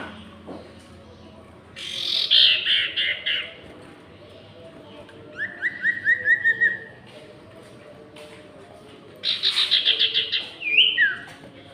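Caged sirtu (common iora) songbirds singing in three loud bouts of rapid repeated chirping notes. The bouts come a few seconds apart, and the last one ends in a slurred whistle. The two birds are answering each other in song.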